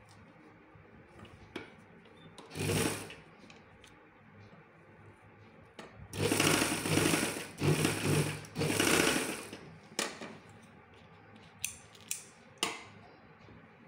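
Domestic sewing machine stitching in short runs: a brief burst about three seconds in, then a longer run in three bursts from about six to nine and a half seconds. A few sharp clicks follow near the end.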